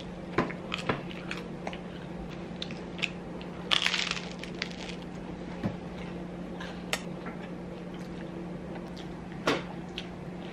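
Sounds of a meal at the table: scattered small clicks and crunches of chewing and of food and fingers tapping on a paper plate and a high-chair tray, with a short cluster about four seconds in and a sharper click near the end, over a steady low hum.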